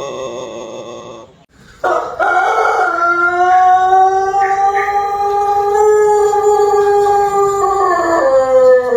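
Pelung rooster crowing: the tail of one crow falls in pitch and fades in the first second. After a short pause a long, drawn-out crow of about seven seconds holds a steady pitch, then drops at the end.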